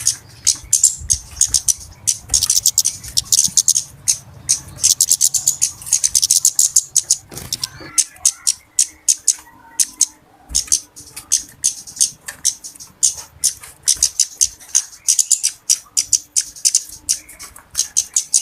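Flowerpeckers (cabe-cabean / kemade) chattering excitedly: rapid strings of short, sharp, very high-pitched ticking calls, several birds at once. The calls thin out briefly about halfway through, then resume just as busily.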